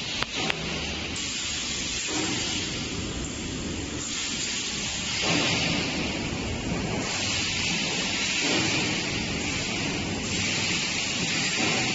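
Steady hissing background noise with no clear source, shifting slightly in tone every second or two.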